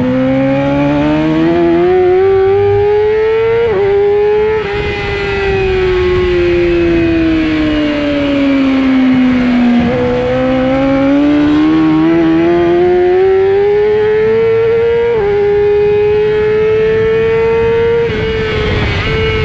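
Onboard sound of a 600-class racing motorcycle engine at speed on track. The engine note climbs and breaks briefly about four seconds in. It then sinks slowly for about five seconds, climbs again, and holds fairly steady near the end, over a steady rushing noise.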